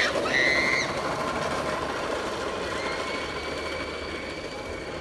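A child's go-kart running steadily, with a brief high squeal about half a second in and a faint steady whine joining about three seconds in.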